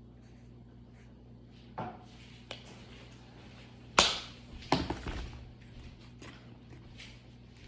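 Hands handling slime and its containers on a table: a few light taps, then a sharp knock about four seconds in followed by a short flurry of smaller knocks and rustling, over a steady low hum.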